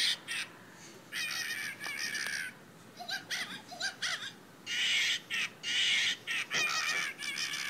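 Harsh caw-like squawks, each about half a second long, come in runs. A few short, high chirps fall between them about three to four seconds in.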